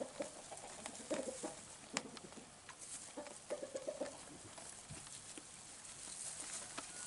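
Cameroon dwarf sheep munching hay, with faint scattered crunching and rustling clicks. Short clucking bird calls sound a second in and again around three to four seconds.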